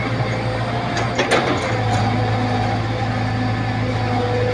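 Hitachi Zaxis 110 excavator's diesel engine running steadily, with a few sharp clanks about a second in.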